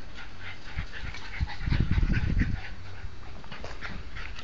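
Jack Russell terrier whimpering and panting in short, rapid bursts, worked up as it hunts for a rat in straw bales.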